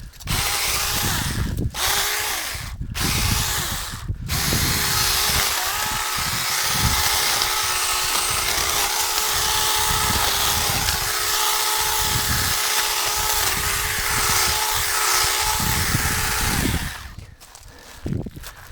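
Saker mini cordless electric chainsaw running with a steady motor whine and chain hiss, cutting branches. The trigger is let off briefly three times early on, then the saw runs continuously until it stops near the end.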